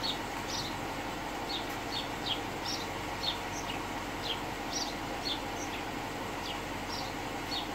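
2015 Dodge Challenger R/T's 5.7-litre Hemi V8 idling steadily and quietly with the QTP exhaust cutouts still shut. Short high chirps repeat about twice a second over the idle.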